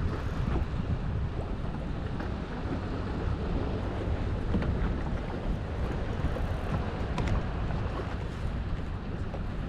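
Steady wind rumble on the microphone with water washing against a boat, and a few faint clicks.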